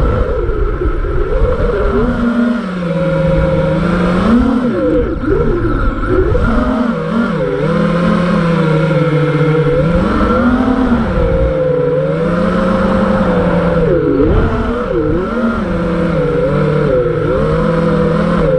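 Brushless motors and 5-inch propellers of an FPV freestyle quadcopter (TBS Masterpilot 2400kV motors on 4S) whining in flight. The pitch keeps rising and falling as the throttle is punched and chopped.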